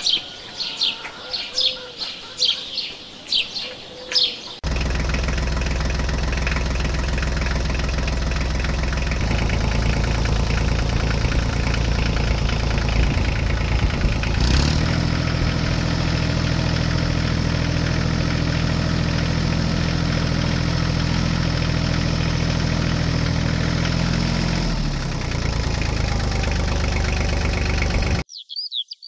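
Birds chirping for a few seconds, then an abrupt cut to a vehicle engine running steadily, its note shifting a few times, before it cuts off suddenly near the end.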